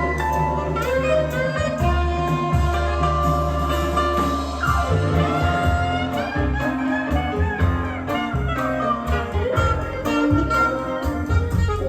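Jazz-blues music with horns and a strong bass line, played back from a cassette test recording on a restored Akai GX-9 cassette deck.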